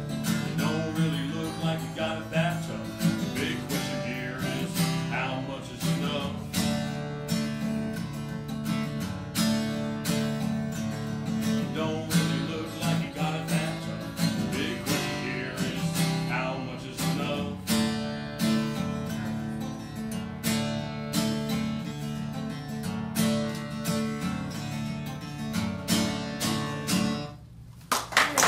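Acoustic blues guitar played live, strummed and picked, ending with a final chord about a second before the end; applause breaks out right after.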